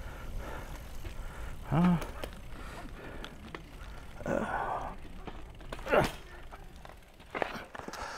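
A brief wordless voice sound, like a hum, with a few knocks and rustles of handling around it.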